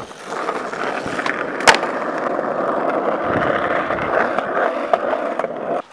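Skateboard wheels rolling on asphalt, a steady grinding roll with one sharp knock about a second and a half in. It cuts off abruptly near the end.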